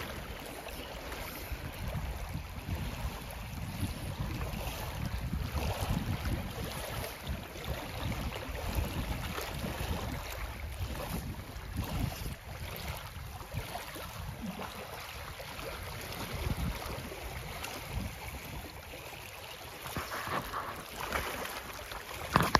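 Wind rumbling on the microphone over small waves lapping on a gravel shore. Near the end, a fish splashes and thrashes in the shallows at the water's edge.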